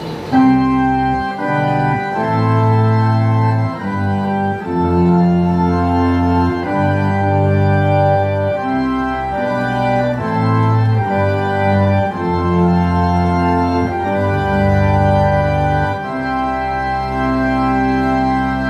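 Yamaha CK61 stage keyboard played with an organ voice: held chords over a bass line that sustain without fading, changing every second or two.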